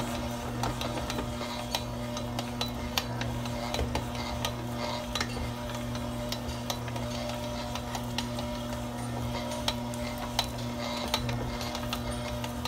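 Stand mixer motor running steadily, its dough hook kneading bread dough in the steel bowl while butter is worked in bit by bit. Many sharp clicks of metal against the bowl are scattered through it.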